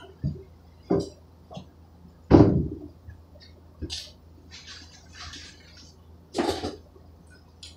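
Kitchen refrigerator being opened and rummaged through: a loud thump about two seconds in, then scattered knocks and rustling as items inside are moved, and another thump near the end.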